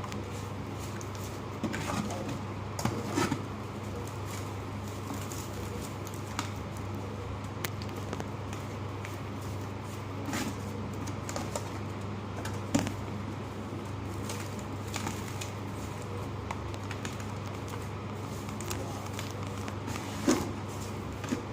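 Clumps of ash, sand and charcoal crumbling: scattered soft crunches and crackles, with a few sharper cracks, the loudest about 13 and 20 seconds in.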